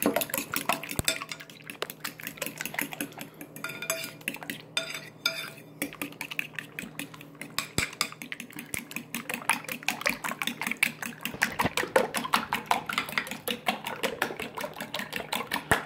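A fork beating eggs and milk in a ceramic bowl: rapid, rhythmic clinks of the fork against the bowl with the wet slap of the mixture. The beating slackens briefly about four seconds in, then picks up faster and louder.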